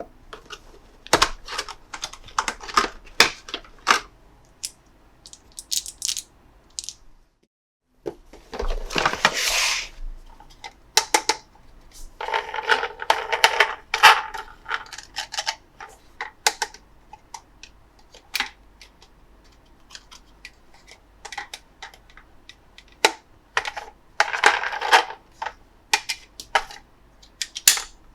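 Hard plastic toy pieces being handled, clicked and snapped, with sharp taps and several longer stretches of rustling packaging. The sound cuts out briefly about seven seconds in.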